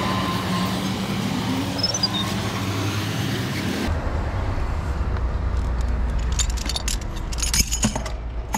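Steady traffic noise that changes about four seconds in to a low rumble with the high end gone, followed by a run of sharp clicks and clinks near the end.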